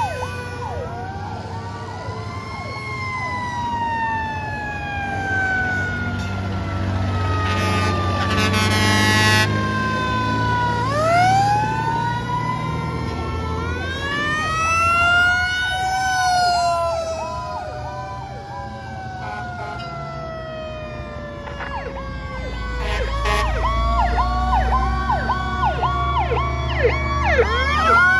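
Sirens of several antique fire trucks going past one after another, overlapping, each slowly winding up and falling away in pitch, over the rumble of truck engines. A horn sounds briefly about eight seconds in, and a faster siren rising and falling about twice a second joins in near the end.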